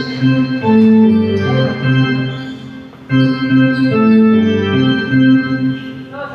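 Electronic organ playing a short riff of held chords that fades and starts over about every three seconds.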